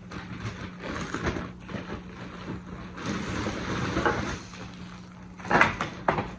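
Clear plastic packaging crinkling and rustling as the plastic parts of a baby activity center are unwrapped and handled, with a sharp clatter of a plastic part near the end.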